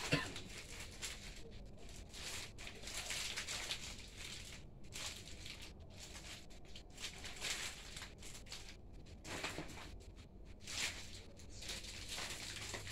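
Plastic packaging rustling and crinkling as it is handled, in irregular bursts with short pauses.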